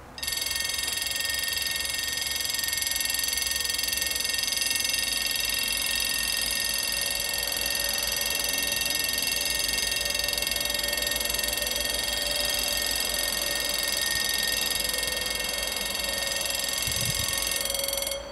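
Level-crossing warning bells (two electronic ringers) ringing steadily and shrilly while the barriers lower, warning of an approaching train. They start abruptly and cut off about eighteen seconds later, as the barriers come fully down.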